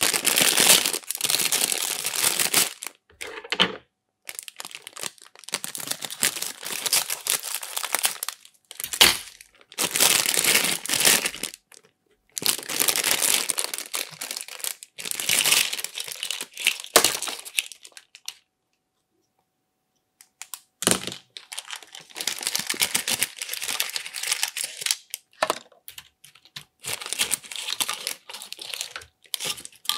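Clear plastic bag crinkling and rustling as it is handled, in bursts separated by short pauses, with about two seconds of silence a little past the middle.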